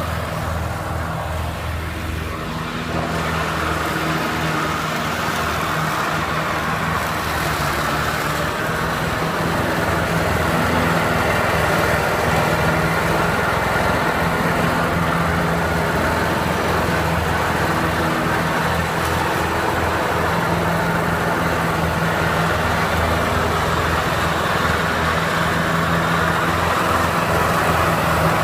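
Riding lawnmower engine running steadily, getting a little louder over the first several seconds.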